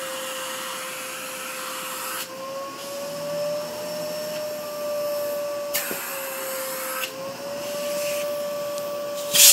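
Vacuum cleaner motor running with a steady whine, its rushing airflow hiss cutting back and returning abruptly several times. A sudden loud surge comes right at the end.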